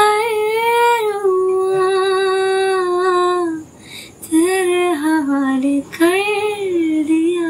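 A young woman singing unaccompanied, holding a long note for about three and a half seconds. After a short break she sings two shorter phrases, the pitch dipping and rising.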